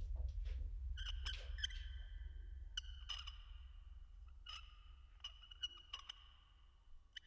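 Faint, eerie horror ambience: a low rumbling drone that slowly fades, with scattered sharp clicks, each leaving high ringing tones that hang in the air.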